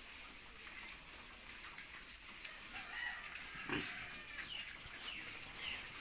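Pigs moving about a concrete pen, with scattered small knocks and short animal calls, and one louder grunt-like sound a little past halfway.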